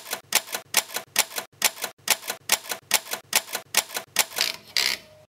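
Steady ticking sound effect: sharp clicks at an even pace of about two and a half a second, with a brighter hit near the end, cutting off suddenly.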